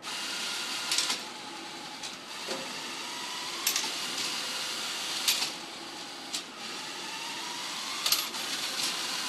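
The robot's electric drive motors and gearing whir under load with a pitch that drifts up and down, and loud clicks come every few seconds as the ratchet climbing mechanism catches. The noise starts and stops abruptly.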